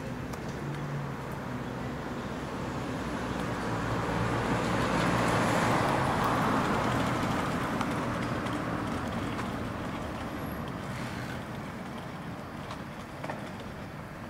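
A motor vehicle passing on a nearby road: its engine and tyre noise grows steadily, peaks about halfway through, then slowly fades away.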